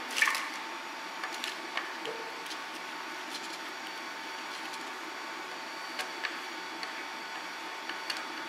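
Plastic MonoKote film being pressed and handled by hand on a glass 3D-printer heat bed, giving a few sharp light crinkles and taps, the loudest just at the start. Underneath runs a steady faint hiss with a high steady tone.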